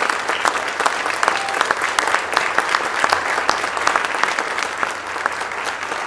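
A roomful of people applauding with dense, steady clapping that eases a little near the end.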